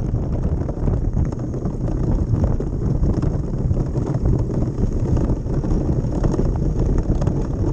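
DN iceboat under sail, its steel runners rumbling over the lake ice with a continuous fine ticking and chatter, mixed with wind buffeting the microphone.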